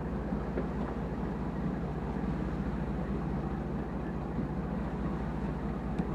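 Fishing boat's engine running steadily underway, a low drone under a steady rush of water past the hull.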